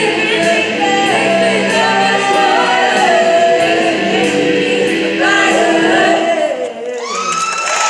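Show choir of young women singing in harmony through microphones, holding sustained notes as the song ends about seven seconds in. Audience cheering and applause start right after.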